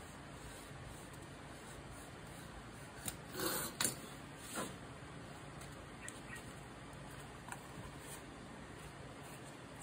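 Stiff paper cards handled on a wooden desk: about three seconds in, a short rustling slide of card and a couple of sharp taps as a craft knife is set down, then a few faint paper touches.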